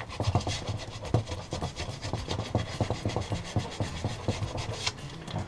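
180-grit sandpaper rubbed by hand over the gasket face of a Mobylette moped's two-stroke cylinder, in quick, uneven scratchy strokes, sanding off the last of the old thin gasket.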